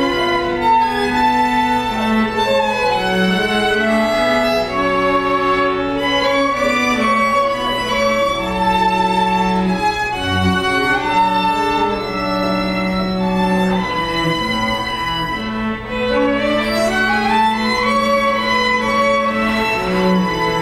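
String quartet of violins and cello playing live: sustained bowed notes over a held cello line, with rising runs in the upper strings near the end.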